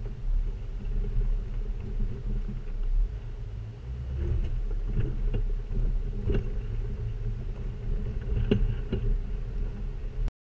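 A 2006 Jeep Wrangler TJ's 4.0 inline-six and tyres making a steady low rumble as it drives over dried, cracked mud, picked up by a camera mounted low beside a rear wheel. A few sharp knocks come through in the second half, and the sound cuts off abruptly near the end.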